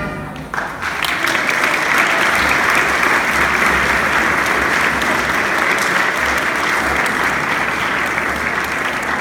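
Audience applauding: the music dies away at the start and steady applause breaks out about half a second in.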